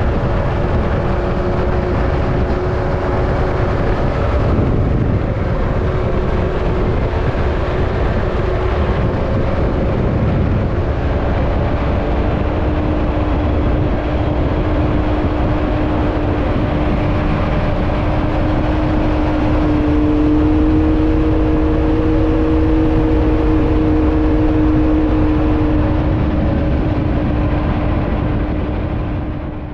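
Can-Am X3 side-by-side driving along a trail: a steady engine drone with pitch that shifts a little as the throttle changes, under a constant rush of wind and tyre noise.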